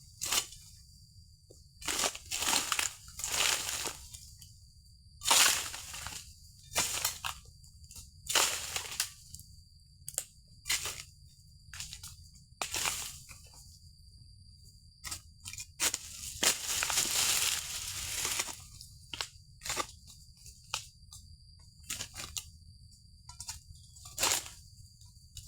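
Oil palm fronds being cut with an egrek, a sickle on a long pole: irregular crunching and tearing strokes, about a dozen of them. There is a longer rustling, crackling stretch about two-thirds of the way through.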